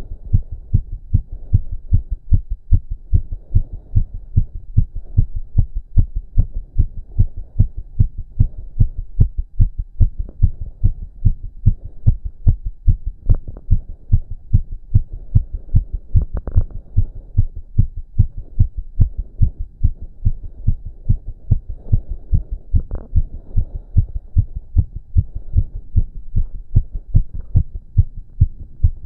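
A man's heartbeat, racing after exercise: low thumps repeating quickly at an even rhythm.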